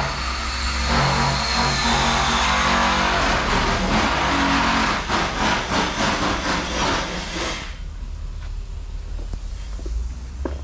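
Ford 6.7L Power Stroke V8 turbodiesel running hard and loud with a steady low drone, then dropping abruptly about seven and a half seconds in to a much quieter low idle.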